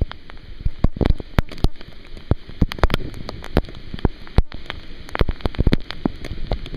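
Raindrops striking close to the microphone as many irregular sharp taps, over a low rumbling noise.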